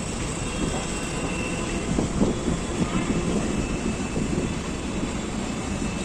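Train running on the rails: a steady rumble with no sharp single events.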